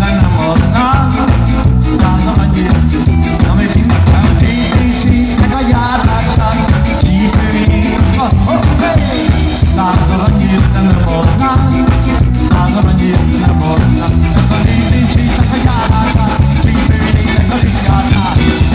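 Live rock band playing: a drum kit keeping a steady beat, with the hi-hat ticking about four times a second, under electric guitars.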